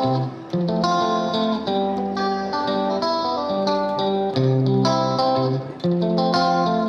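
Background music: a plucked guitar playing a steady, rhythmic melody of short notes.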